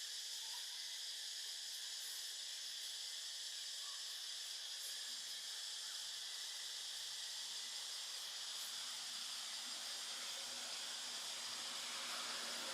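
Steady high-pitched insect chorus, an even hiss that runs without a break.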